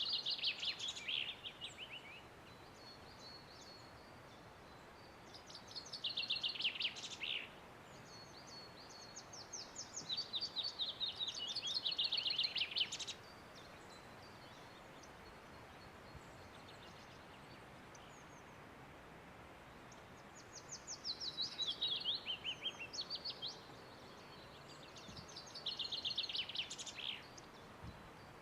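A songbird singing short, loud phrases of rapid repeated notes that fall in pitch, about five phrases a few seconds apart with longer gaps between, over a faint steady outdoor hiss.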